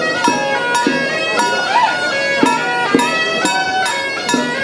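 Suona (Chinese shawm) playing a melody of held and sliding notes over regular strikes of drum and cymbals: traditional Taiwanese temple procession music.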